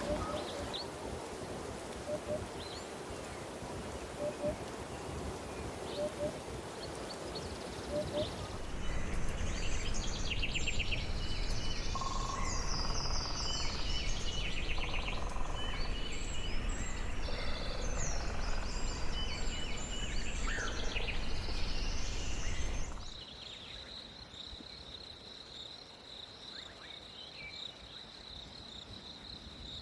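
Wild birds calling and chirping over outdoor background noise. About nine seconds in the sound cuts to a louder, busier mix of several birds' calls and trills. About 23 seconds in it cuts again to a steady high-pitched insect trill with a few faint chirps.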